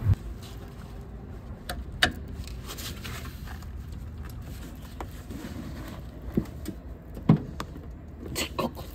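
Scattered faint clicks and knocks of a hand wrench on the brake caliper bracket bolts and hub, with a few short grunts of effort as the tight bolts are strained at by hand without breaking loose.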